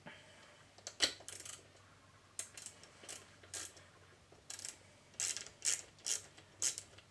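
Light metallic clicks from a hand tool turning the cylinder-head bolts of a small piston air compressor as they are run down to just touching. The clicks are scattered at first and come about twice a second near the end.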